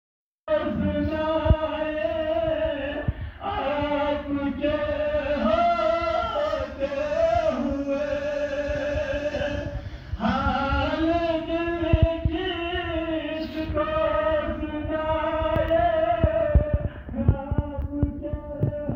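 Male voice singing a naat without instruments into a microphone over a PA, with long held notes; it starts about half a second in after a short gap.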